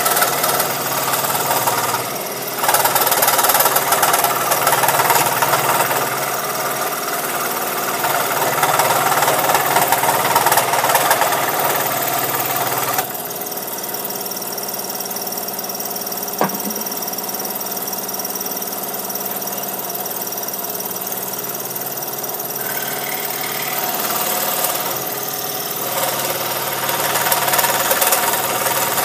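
Scroll saw running and cutting through a wooden intarsia piece as it is fed into the blade. The sound is louder and harsher in the first half, drops about halfway through, with a single short tick a few seconds later, and picks up again near the end.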